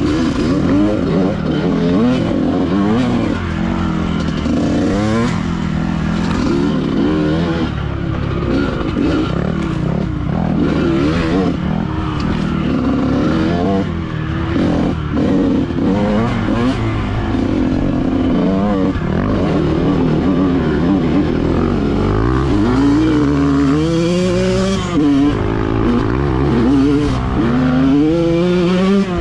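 Dirt bike engine running hard, its pitch rising and falling again and again as the throttle is worked, with a few knocks along the way and clear revving up near the end.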